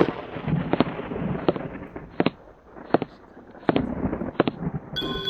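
A series of sharp pops, about one every 0.7 s, over a rushing hiss. Near the end a steady electronic tone with several pitches takes over.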